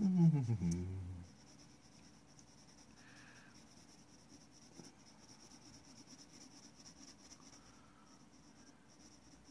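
Pencil scratching on paper as lines are drawn. In the first second a person makes a short voice sound that slides down in pitch.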